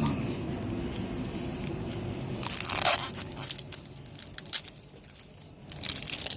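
Foil wrapper of a Pokémon TCG Ancient Origins booster pack being torn open and crinkled, in sharp crackly bursts starting about two and a half seconds in.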